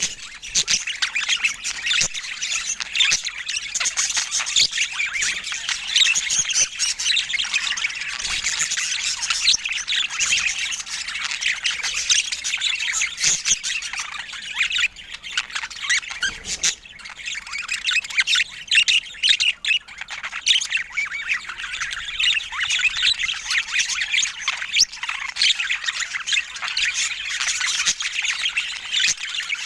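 Budgerigars chattering, with a dense, high-pitched stream of chirps, warbles and squawks that thins briefly about halfway through.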